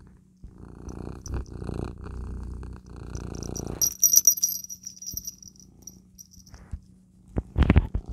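Calico cat purring close to the microphone. About four seconds in, a small bell jingles for a few seconds, and near the end the cat bumps the microphone several times with loud knocks.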